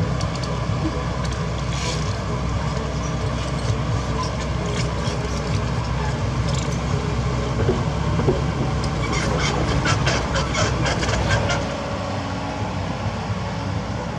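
Kobelco SK75 excavator's diesel engine running steadily under work, with a quick run of clicks and knocks between about 9 and 11.5 seconds in.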